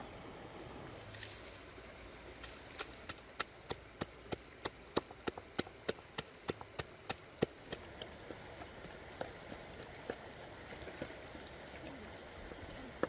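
Wooden pestle pounding red chilies and garlic in a wooden mortar: a steady run of knocks about three a second starting a couple of seconds in, then lighter, sparser strokes.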